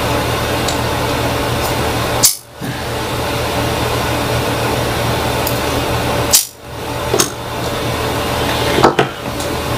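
Loud steady hiss and electrical hum with sharp clicks of small tools and a circuit board being handled on a workbench. Two strong clicks come about two and six seconds in, each followed by a brief drop in the hiss, and lighter clicks come near the end.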